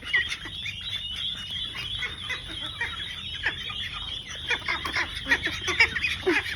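Many small birds chirping together, a dense, continuous chorus of short overlapping calls.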